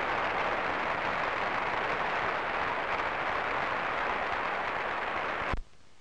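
Large tennis crowd applauding, a dense steady clatter, which cuts off abruptly with a click near the end, leaving only faint hiss.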